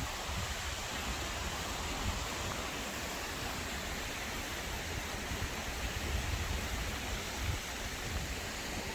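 Steady rushing of a waterfall and the stream running from it, with uneven wind rumble on the microphone underneath.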